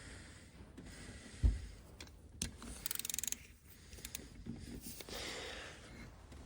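Hand tools working the bolts on a 7.3L Powerstroke turbo: a dull knock about a second and a half in, then a quick run of ratchet-wrench clicks about three seconds in, with quieter tool handling around them.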